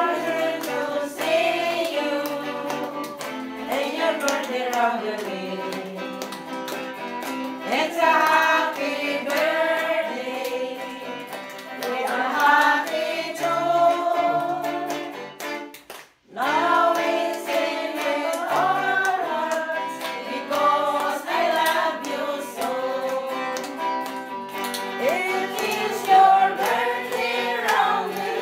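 A group of voices singing a song together with instrumental accompaniment. The sound drops out for a moment a little past halfway through.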